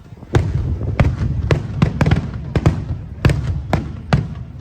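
Aerial firework shells bursting in rapid succession: about a dozen sharp bangs, some coming in quick pairs, over a continuous low rumble.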